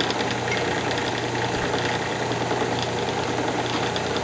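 Wood lathe running steadily with a wooden blank spinning on it, a constant motor hum under a noisy whir.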